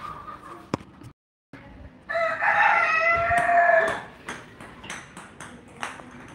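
A loud, drawn-out animal call of about two seconds, with several wavering tones, beginning about two seconds in. A run of light, sharp taps follows it.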